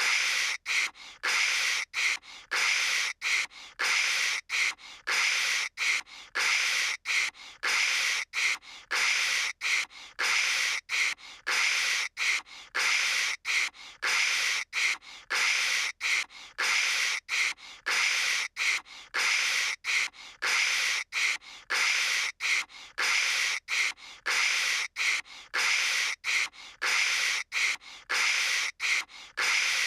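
A cartoon character's voice imitating phone static: short, breathy 'kshh' hisses repeated about two a second, a mouth-made crackle standing in for a bad phone line.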